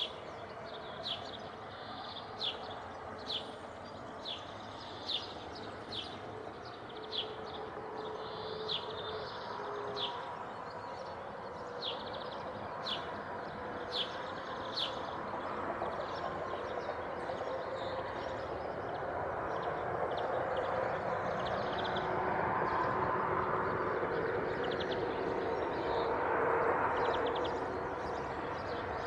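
A bird repeats a short, sharp high chirp about once a second, later giving a few quick trills, over steady outdoor background noise. A low rumble of a passing vehicle swells through the second half, loudest near the end, then eases.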